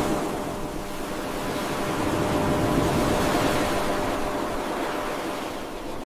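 Ocean surf: a wave washing in and drawing back, a steady rush that builds to a peak about halfway through and then eases off, with a faint steady hum beneath it.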